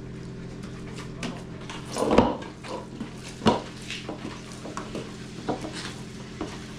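Tiri bread dough being worked by hand in a large metal bowl: soft handling sounds of the dough with scattered knocks and clinks of the bowl, the loudest a dull thump about two seconds in and a sharp knock about a second and a half later. A steady low hum runs underneath.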